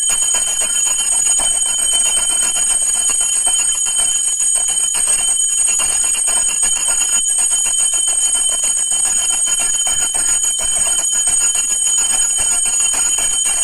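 Puja hand bell rung continuously and rapidly during aarti, a steady bright ringing with a dense rattle of clapper strikes that cuts off just after the end.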